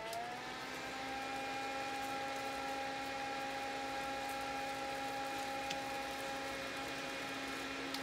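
Small portable mini fan, Envow Haneulbaram, running with a steady whir of motor and blades. It opens with a button click that steps it up to a faster speed, its hum rising slightly in pitch. Near the end another click comes and the whir starts to fall in pitch as the fan is switched off and spins down.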